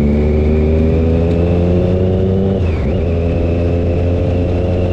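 Motorcycle engine pulling away under load, its note climbing gently, with a brief dip near the middle before it holds steady.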